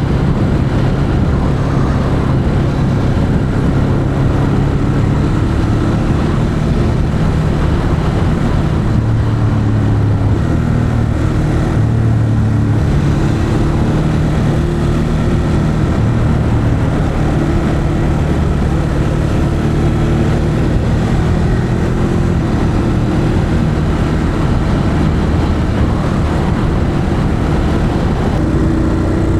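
Ducati Monster 821's stock exhaust on its 821 cc V-twin, running steadily at city pace, with small shifts in engine speed.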